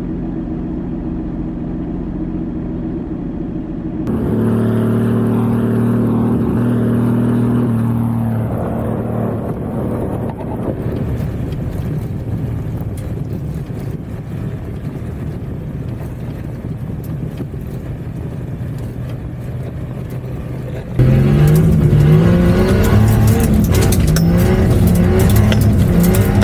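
Nissan 240SX's turbocharged RB20DET straight-six driving hard on dirt, heard in several short clips. About three-quarters of the way through it turns louder and is heard inside the cabin, the revs climbing and dropping back several times as the car accelerates.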